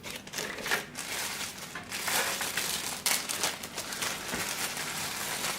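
Plastic packaging crinkling and rustling, with small irregular clicks, as bagged accessories are handled.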